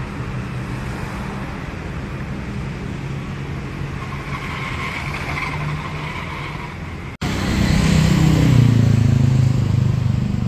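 Street traffic: motor vehicle engines running steadily. About seven seconds in there is an abrupt cut, after which a nearer engine is louder.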